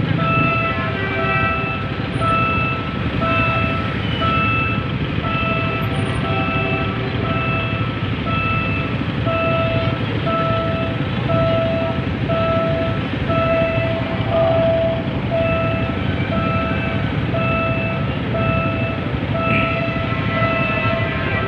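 An electronic warning beeper repeating a single pitched beep about twice a second, over the low steady rumble of idling motorcycle and traffic engines.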